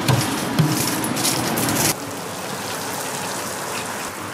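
A few knocks and clatters of handling for about two seconds. Then the sound changes suddenly to the steady hiss of dough deep-frying in hot oil.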